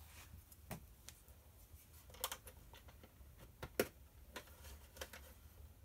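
A few faint, scattered clicks and light taps of small parts being handled as a clock's hour hand is pressed onto the shaft of a quartz movement.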